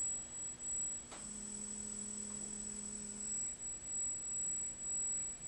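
Brushless gimbal motor on an ARRIS CM2000 gimbal giving a low steady hum for about two seconds, starting about a second in, as it tilts the camera on manual pitch. A faint high-pitched whine sits under it.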